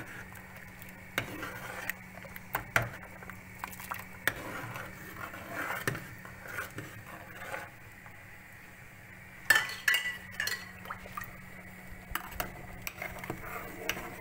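A spoon stirring soup in a cooking pot, with scattered clinks and knocks against the pot, the loudest about nine and a half seconds in. A steady low hum runs underneath.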